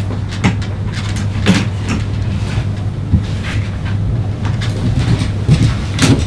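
A steady low hum with scattered knocks and clicks on top.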